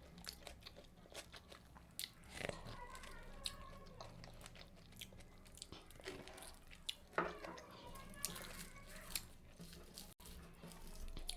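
Close-miked eating: a person biting and chewing crisp khasta puri with curry, short crunches and mouth clicks scattered irregularly throughout.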